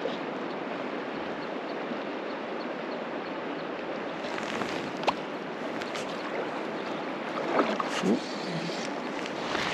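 South Platte River current rushing steadily past a run. A few sharp clicks come about halfway through, and a brief pitched sound near the end is the loudest moment.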